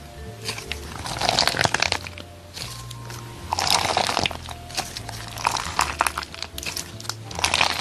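Clear slime packed with green jelly pieces being squeezed by hand, crunching and crackling in four bursts about two seconds apart, over jazzy background music with a walking bass line.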